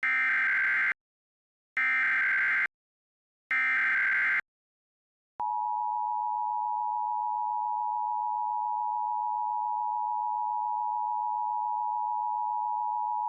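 Emergency Alert System signal on an FM radio broadcast: three bursts of SAME header data, each about a second long with about a second's gap between them, then the steady two-tone EAS attention signal held about eight seconds. Together they mark the start of an emergency alert, here a tornado warning.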